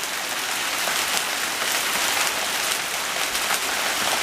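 Heavy hail coming down hard: a dense, steady rush of hailstones pattering on surfaces, getting more intense.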